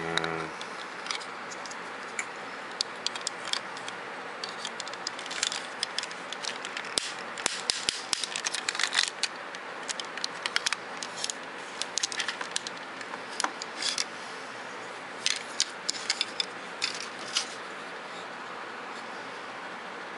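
Hard plastic parts of a Robots in Disguise Optimus Prime transforming toy clicking, knocking and rattling in scattered bursts as they are handled and folded, over a steady hiss.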